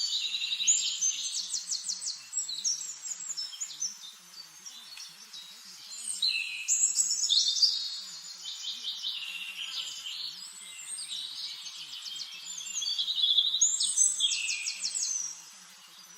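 Several songbirds singing at once, a chorus of overlapping whistled phrases and fast trills of rapidly repeated notes, loudest in bursts near the start, around the middle and just before the end.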